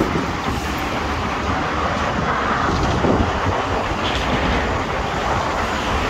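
Steady rush of traffic on a busy multi-lane road, heard from a footbridge over it.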